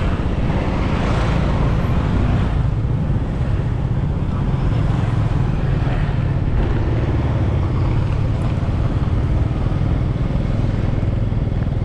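Steady, even rumble of a moving vehicle, with wind noise over it.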